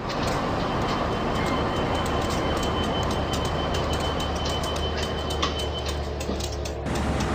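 CC201 diesel-electric locomotive running: a steady low drone with many quick rail clicks over it, and a thin high whine that stops about five and a half seconds in.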